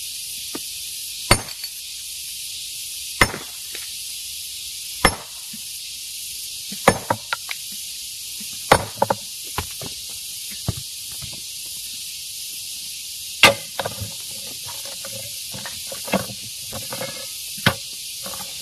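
Hammer striking rock to break stone by hand: about seven sharp blows, roughly two seconds apart at first and then more spaced, with smaller clicks and rattles of stone between them, over a steady high hiss.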